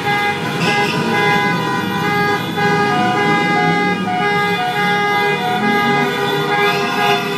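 Many car horns honking at once at different pitches, long held blasts overlapping with no break. It is the celebratory honking of a fans' motorcade after a football victory.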